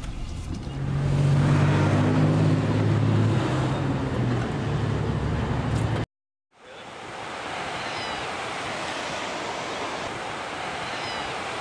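A car engine's steady drone heard from inside the cabin, swelling about a second in. It cuts off abruptly to silence about six seconds in, followed by a steady rush of ocean surf and wind.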